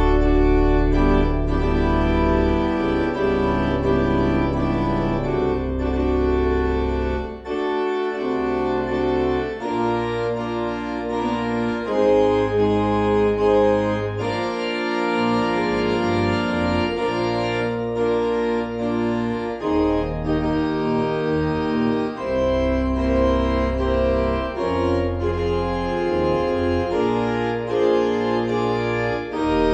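Organ playing a postlude: slow, sustained chords over held bass notes that change every second or two.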